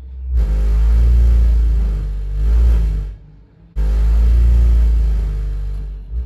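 Ideal Logic 30 gas boiler making an abnormal loud, low rumbling drone with a pitched hum over it, in two bursts of about three seconds each. The sound cuts out briefly in the middle, starts again abruptly, and fades near the end.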